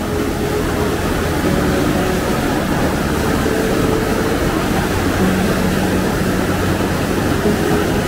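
Glacier-fed mountain river and waterfall rushing, a loud, steady, unbroken water noise.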